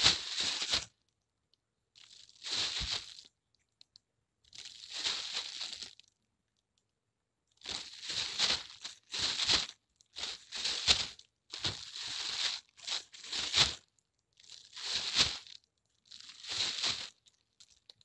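Plastic bag crinkling and rustling as it is handled, in repeated bursts of a second or two with short silent gaps between them. The bursts run closer together in the middle stretch.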